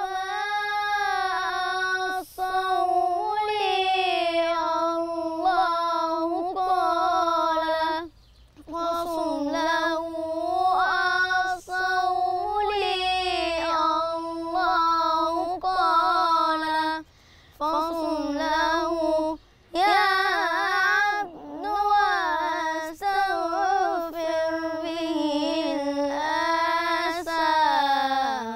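A boy's solo voice chanting Islamic religious inshad without instruments, in long held notes with ornamented turns, pausing for breath about a third of the way in and twice around the middle.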